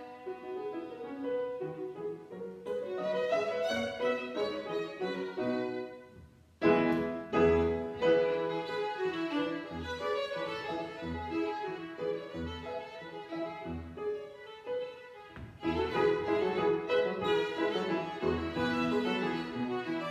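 Violin and grand piano playing classical music together. About six seconds in the music falls almost silent, then comes back loud with a low piano note struck about once a second under the violin line; it dips briefly again about fifteen seconds in before playing on.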